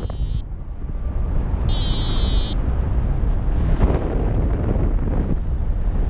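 Wind buffeting the microphone in paraglider flight, a steady low rumble. Partway in, a high warbling electronic beep of about a second from the Syride Sys'Nav V3 variometer.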